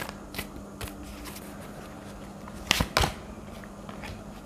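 Tarot cards being handled and laid down on a table: a few faint flicks, then two sharp card snaps close together, about three-quarters of a second apart, a little under three seconds in.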